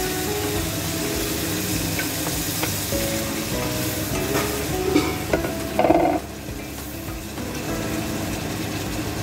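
Chicken sizzling in a stainless steel pot while a wooden spoon stirs it. About five to six seconds in, liquid is poured in with a brief loud splash and hiss, and the sizzling is quieter after that.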